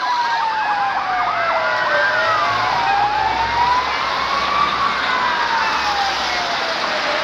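Several emergency vehicle sirens sounding at once: one in a slow wail, falling and rising over a few seconds, and another in a fast yelp for the first second or so. A low engine rumble lies beneath in the middle.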